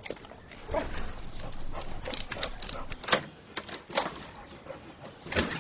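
Dog lapping water from a toilet bowl, a quick run of wet licks and splashes, then the click of a door knob and latch about four seconds in.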